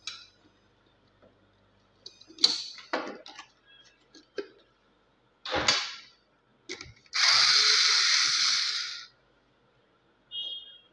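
Cordless electric screwdriver running in one burst of about two seconds near the end, backing a screw out of an LED TV's plastic back cover. Scattered clicks and knocks from handling the tool and the cover come before it.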